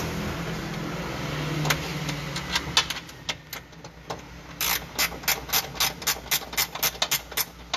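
Hand ratchet wrench clicking as the nuts of a rear coilover's upper mount are tightened: a few scattered clicks at first, then quick regular strokes at about five clicks a second from a little past halfway. A steady low hum runs underneath.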